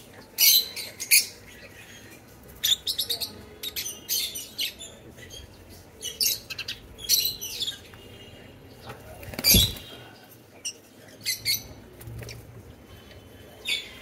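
A flock of peach-faced lovebirds chirping: sharp, high calls in short clusters every second or two. One louder, fuller sound comes about halfway through.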